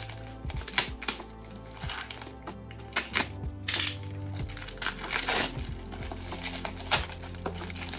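A boxed book set being unpacked by hand: packaging crinkling and rustling, with scrapes and light clicks and knocks as the box is handled, over soft background music.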